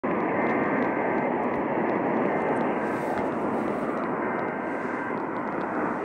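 Steady hiss and static from a portable radio's speaker on AM reception. Under the hiss are faint two-tone data bursts, twice: the coded header of an Emergency Alert System test.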